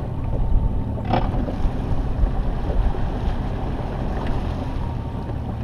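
Bass boat running at speed: steady rush of wind on the microphone over the drone of the outboard engine, with a sharp knock about a second in.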